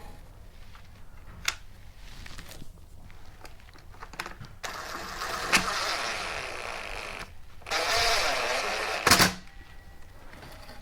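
Trimmer parts being handled: a sharp click, then two stretches of scraping and rubbing, about two and a half seconds and a second and a half long, the second ending in a loud knock.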